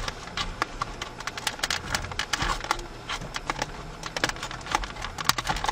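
Plastic trim stick prying at the clipped plastic trim piece on a 2007 Chevy Silverado's center console lid: a run of small, irregular plastic clicks and scrapes as the clips are worked loose.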